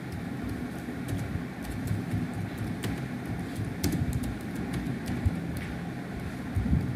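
Computer keyboard keys clicking irregularly as a word is typed, over a steady low background rumble.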